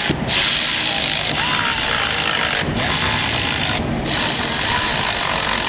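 Power ratchet with an 8mm socket running down intake plenum bolts, a loud steady hissing run broken by a few short stops where the trigger is let off.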